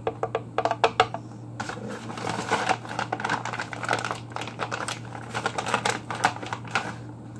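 Paper flour bag crinkling and rustling as it is tipped and shaken over a blender jar: a quick run of small crackles, densest from about a second and a half in until near the end, over a steady low hum.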